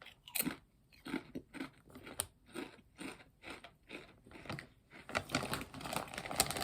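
Mouth chewing crunchy kettle-cooked potato chips, a steady run of crisp crunches about two or three a second, coming faster near the end.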